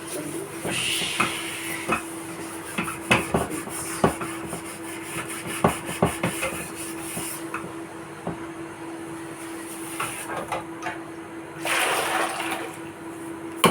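Washing dishes by hand: tap water runs in two short spells, about a second in and again near the end, with plates and utensils clinking and knocking in between.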